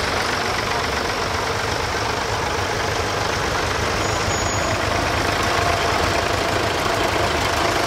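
Engines of several vintage Fordson and Ford tractors idling together, a steady, even engine sound.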